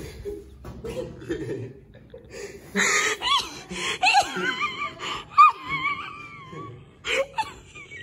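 A person's high-pitched laughing and squealing, in wavy sliding cries over murmured voices, starting about three seconds in and dying away near the end.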